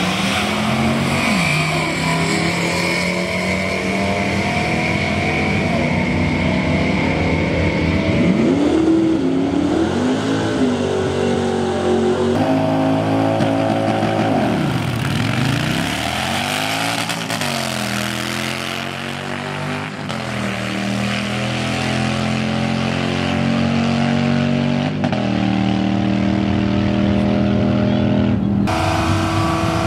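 Drag-racing car engines running loudly on a quarter-mile strip, the pitch climbing and dropping several times as they rev and change gear. The sound changes abruptly near the end.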